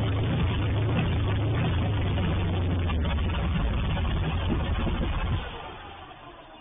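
1985 Dodge D150's 408 Magnum V8 running steadily, then shut off about five seconds in, its sound dropping away quickly and fading out.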